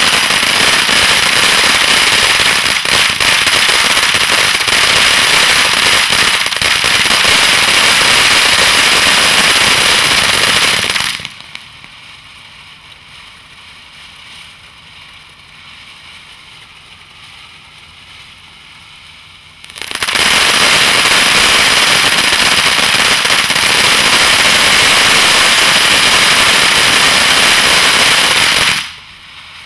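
Refiner's Fire consumer firework fountain spraying sparks with dense, loud crackling. About eleven seconds in it drops to a quieter hiss for some eight seconds. A second loud crackling spell then follows and stops shortly before the end.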